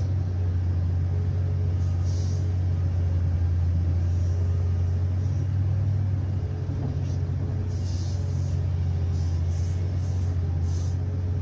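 Steady low drone of a Komatsu PC3000 mining excavator, heard from inside its cab while the machine digs. A few faint, brief hisses rise above the drone.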